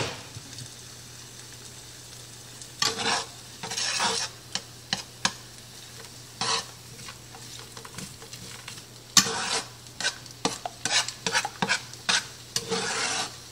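Eggs and frozen mixed vegetables frying in a hot skillet with a faint steady sizzle, a sharp knock at the very start, then a utensil scraping and pushing the food around the pan in short strokes, coming quick and many in the last few seconds.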